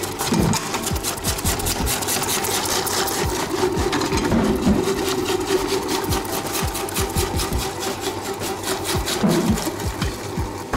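Electric vegetable dicing machine running while cooked carrots are pushed through it and diced: a steady motor hum with a fast, dense clatter from the cutting blades.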